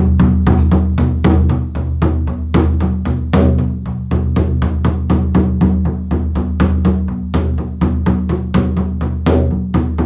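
Hand-made rawhide frame drum struck with a padded beater in a steady beat of about four to five strokes a second, each stroke over a deep, sustained ring. This is a well-tensioned skin with the drum's full, nice tone.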